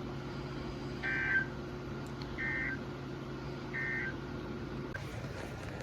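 Emergency Alert System end-of-message tones: three short two-tone SAME data bursts, a little over a second apart, signalling the end of the severe thunderstorm warning broadcast. A steady low hum runs underneath.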